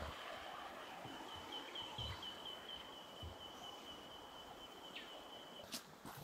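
Forest creek ambience: faint running water under a high, thin call held at one pitch, with a short run of quick warbles in it, that stops shortly before the end. A few soft low thuds.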